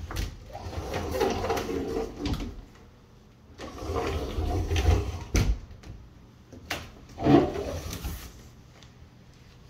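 Double hinged closet doors being opened and then pushed shut, with a few sharp clicks and knocks from the doors and their latches between stretches of rustling handling noise.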